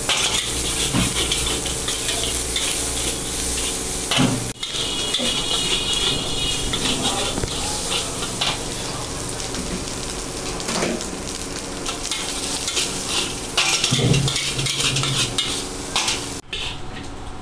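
Chicken fried rice sizzling in a large steel wok while a metal ladle stirs and scrapes through it, with repeated scrapes and clanks of the ladle against the wok.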